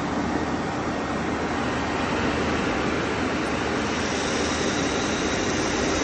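Classic Retrofit Electrocooler AC blower running steadily on a 13.8-volt bench supply. Its fan pushes air out of its open outlets as a steady rush of air over a low hum.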